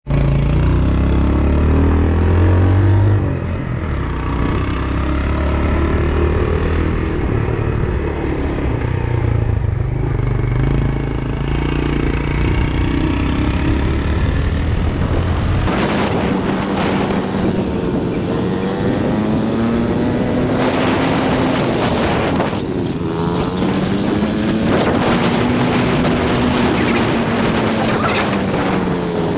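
A motor vehicle engine running, its pitch slowly rising and falling. The sound changes abruptly a little past halfway through.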